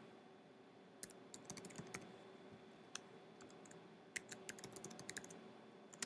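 Faint computer keyboard typing: short runs of quick keystrokes with pauses between them.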